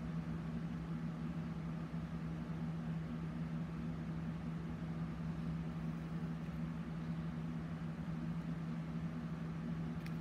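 Steady low hum with a faint even hiss underneath, unchanging throughout: the constant drone of a running machine or appliance in the room.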